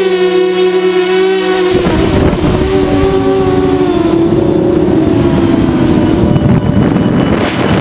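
Quadcopter's brushless motors and 5040 propellers whining at a steady pitch. Nearly two seconds in, a loud rush of wind and prop wash joins in, and the motor whine wavers and dips as the throttle changes.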